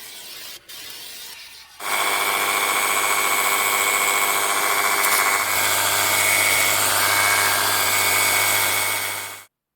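Jimmy JW31 cordless pressure washer running: its battery-driven pump motor starts up about two seconds in with a steady high whine over the hiss of the water jet, then cuts off abruptly near the end.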